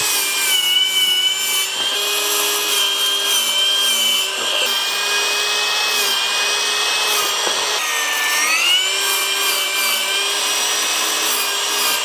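Cordless sliding miter saw running and cutting through wooden boards, a steady high whine over the sawing noise. The whine dips in pitch once, about eight seconds in, then comes back up.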